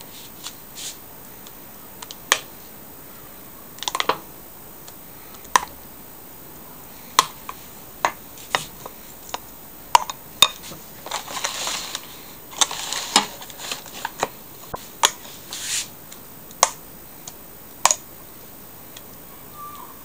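A spoon clinking and scraping against a glass bowl as thick cheese filling is scooped out and dropped onto batter in foil pans: scattered sharp clicks, with a few short scrapes around the middle.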